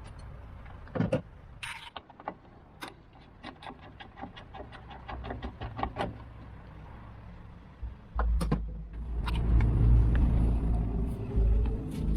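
Hand-tool and metal handling noises on a van door: a few sharp knocks, then a quick run of even clicks like a ratchet turning, then a loud low rumble from about eight seconds in.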